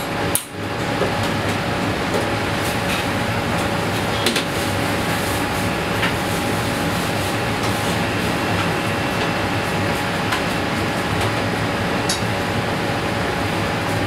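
Steady whoosh of commercial kitchen ventilation with a constant faint hum, and a few light clicks of utensils.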